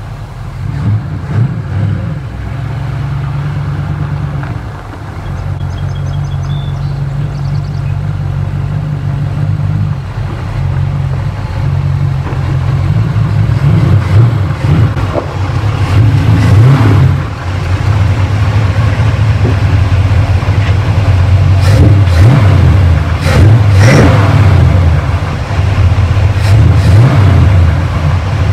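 1947 Ford street rod's Chevrolet engine running as the car drives up and pulls in, getting louder as it comes closer. It blips the throttle several times in the second half.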